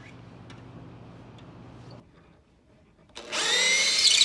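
Power drill fitted with a tuning-pin socket turning a tuning pin into a grand piano's pinblock: the motor whines up in pitch about three seconds in and runs loudly to the end. Before it, a steady low hum that cuts off about two seconds in.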